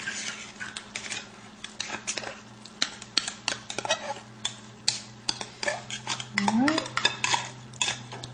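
A spoon clinking and scraping against metal many times in quick, irregular strokes as green chilies are scooped out and added to a pot of chili.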